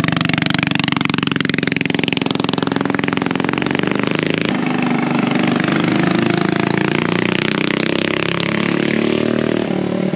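Small minibike engine running at speed, its pitch rising over the first few seconds and then holding.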